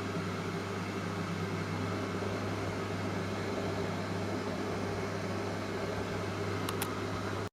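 Samsung EcoBubble washing machine running through its wash cycle: a steady motor hum with a low tone under it, and two faint clicks near the end.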